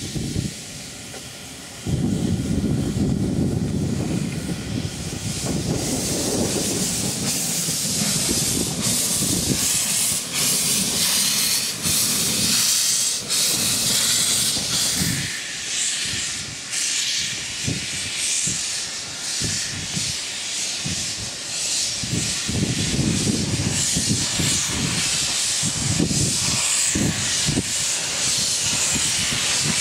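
Small industrial steam tank locomotives moving slowly with the cylinder drain cocks open: a loud, continuous hiss of escaping steam with uneven chuffs and knocks from the engines working. A heavier rumble comes in suddenly about two seconds in.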